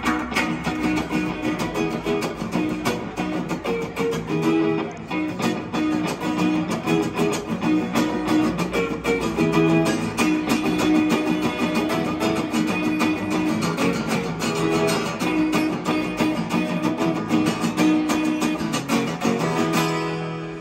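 Acoustic guitar strummed and picked in an instrumental passage, steady chords with melodic runs on top. The playing stops near the end and the last chord rings off.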